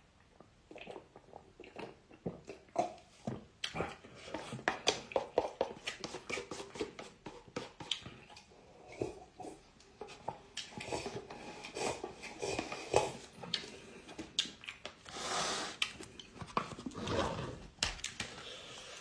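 A person eating instant cup noodles up close: a dense run of small wet mouth clicks and chewing sounds, with slurps about three quarters of the way through.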